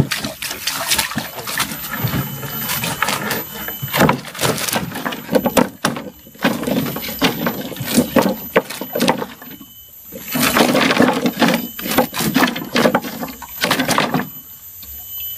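Water splashing and sloshing while a large fish thrashes in a netting fish trap being hauled from the river into a boat, with irregular knocks and scrapes of the trap's stick frame against the hull. It goes quieter shortly before the end.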